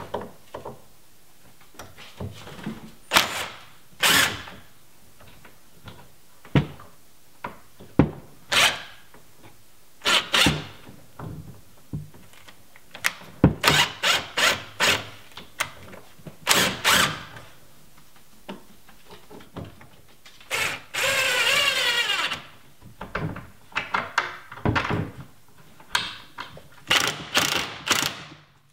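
DeWalt cordless driver running screws into a wooden 2x4 block in many short bursts of a second or less, with one longer run of about a second and a half near the middle.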